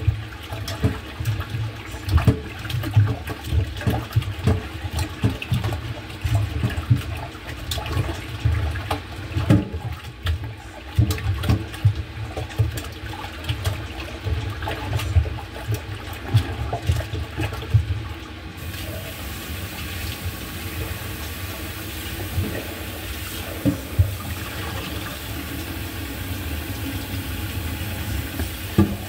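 Water running from a kitchen tap into a sink, with frequent knocks and clatter of handling. About two-thirds of the way through, a steady hiss of flowing water sets in and the knocking thins out.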